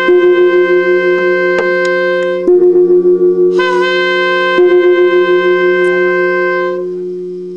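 Conch shell trumpet blown in long held notes, several steady tones overlapping. A fresh blast starts about two and a half and again about three and a half seconds in. The sound fades out near the end.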